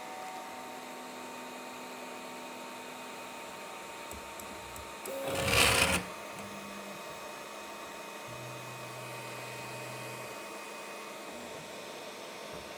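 ELEGOO Neptune 4 Pro 3D printer's stepper motors whining as the head moves, the pitch shifting from one move to the next. A loud, harsh scrape of under a second comes a little past five seconds in.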